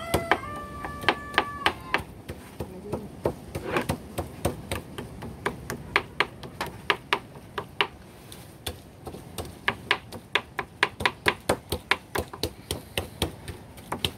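Kitchen knives chopping raw tuna on plastic cutting boards, mincing the meat finely: a quick, uneven run of knocks, about three a second.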